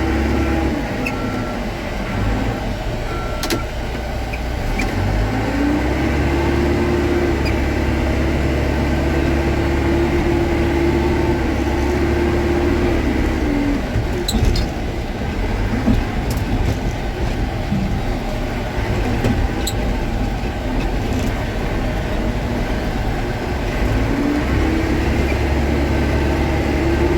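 Caterpillar 420 IT backhoe's diesel engine running, revving up to a higher steady speed for several seconds and dropping back to idle, then revving up again near the end, with a few light knocks along the way.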